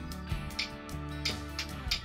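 Background music: a plucked-string instrument over a steady beat, with three sharp hits about two-thirds of a second apart.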